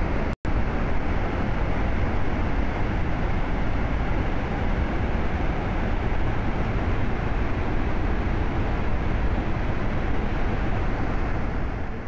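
Large waterfall in full flood: a steady, dense rush of falling water, heaviest in the low rumble. The sound cuts out briefly about half a second in.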